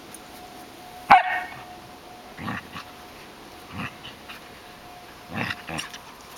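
Samoyed and Sheltie puppy play-fighting: one loud, sharp bark about a second in, then several shorter, quieter barks.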